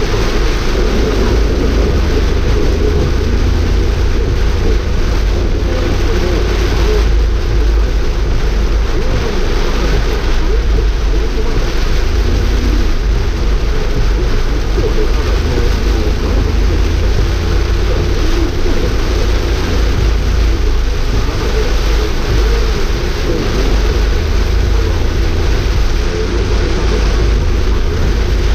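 Steady cabin noise of a car driving through heavy rain: rain on the roof and windscreen and tyres on the flooded road, over a strong low rumble.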